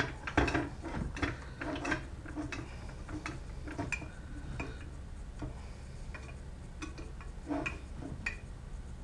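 Screwdriver driving a self-tapping screw into the end of an aluminium rail: a string of small, irregular ticks and clicks, about two a second at first and sparser later, as the screw cuts its thread and the hand turns and regrips.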